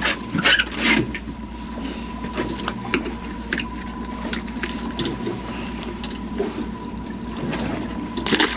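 Water slapping against a small aluminium boat's hull, with scattered clicks and knocks of fish and tackle being handled at the gunwale, loudest about half a second and a second in and again near the end. A faint steady high tone runs under it.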